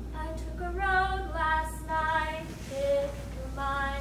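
A woman's voice singing slow, held notes with no instruments, over a low steady hum.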